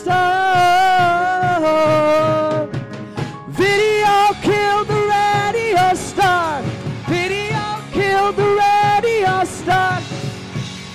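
Live pop-rock band playing: a sustained, sliding lead melody over a steady drum beat.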